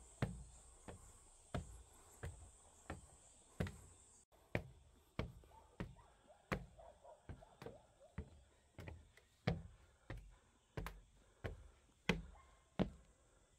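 A hiker's footsteps on a trail, walking at a steady pace of about three steps every two seconds, each step a sharp knock with a low thud.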